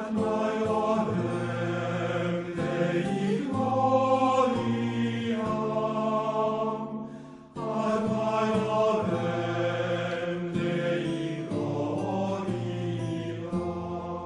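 Music of voices chanting together on long held notes, in two phrases of about seven seconds each, the second starting after a short break about halfway through.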